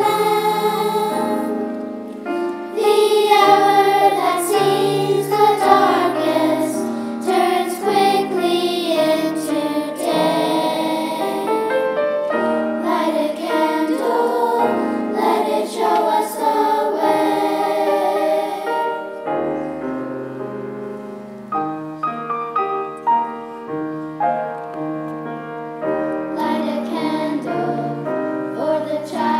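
Children's choir singing. The singing turns softer for several seconds past the middle, then grows again near the end.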